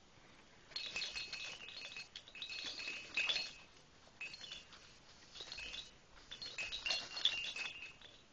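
Metallic jingling in about five short bursts, each a second or so long, with a clear ringing tone through each burst, like a small bell being shaken.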